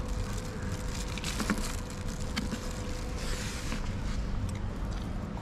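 Street-stall background noise: a steady low rumble with a faint steady hum, scattered small clicks and knocks, and a brief hiss a little past halfway.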